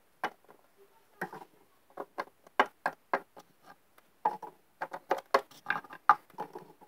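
Hard plastic Littlest Pet Shop figurines tapped and hopped along a wooden tabletop: an uneven run of small clicks and knocks, a few each second.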